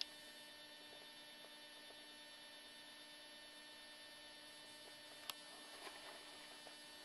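Near silence: a faint, steady electrical hum, with a sharp click right at the start and another about five seconds in.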